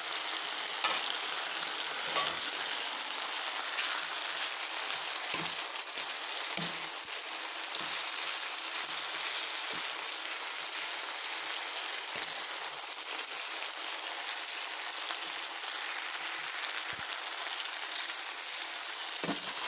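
Noodles, cabbage, meatballs and sausage frying with a steady sizzle in a coated frying pan while being stirred and tossed with a wooden spatula, with a few soft knocks of the spatula against the pan.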